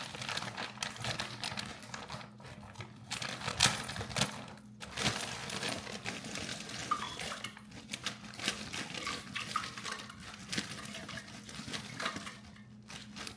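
Kitchen clatter while a bag of frozen vegetables is handled over a pot: many scattered small knocks and rattles, with one sharp knock about three and a half seconds in.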